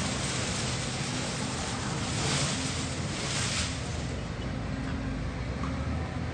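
Heavy diesel engine of a bulldozer running steadily, with a broad rushing hiss that swells for a couple of seconds midway.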